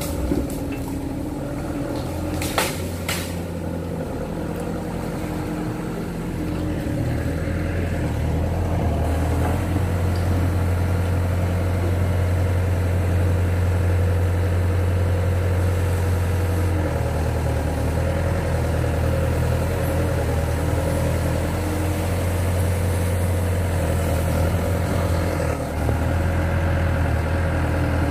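Kato crawler excavator's diesel engine running steadily with a deep hum, growing louder about eight seconds in and then holding steady. Two short sharp clicks sound about two and a half to three seconds in.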